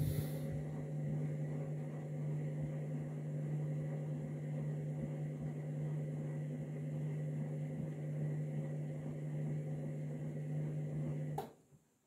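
Candy front-loading washing machine's drum motor running with a steady hum as it tumbles the load during the main wash, then cutting off suddenly with a click near the end as the drum stops.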